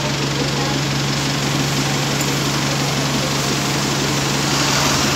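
Double-decker bus engines idling: a steady hum with a constant low tone that does not change.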